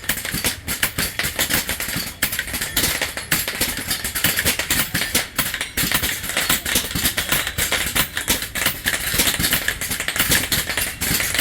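Several air rifles firing rapidly at metal silhouette targets during a timed speed round: a dense, irregular clatter of shots and pellet strikes with no pause. It starts suddenly on the fire command.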